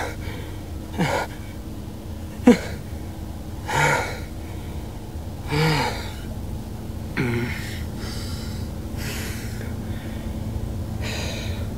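A woman's gasping, shaky breaths, one every second or two, several ending in a short falling whimper, over the steady low rumble of a car's cabin.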